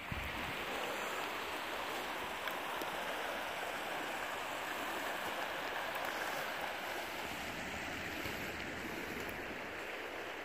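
Creek water running steadily over rocks and cobbles in a shallow riffle.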